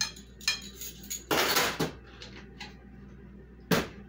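Metal measuring spoons and utensils clinking against a glass mixing bowl as vanilla is measured in: a series of separate clinks, a short clattering rattle about a second and a half in, and a sharp clink near the end.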